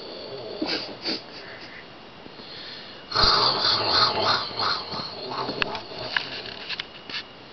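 A young girl snoring through an open mouth, because the flu stops her sleeping with it closed. One loud, noisy snore comes about three seconds in and lasts over a second, with quieter breathing around it.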